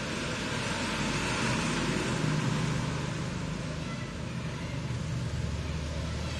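Road traffic noise: a steady hiss with the low drone of vehicle engines, a heavier engine drone building about five seconds in.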